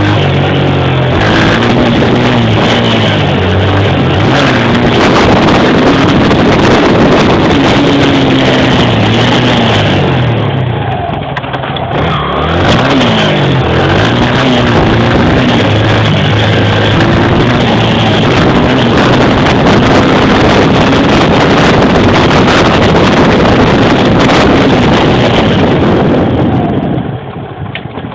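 Honda XR100R dirt bike's single-cylinder four-stroke engine running under way, its revs rising and falling again and again as it is ridden. Near the end it eases off and quiets down sharply.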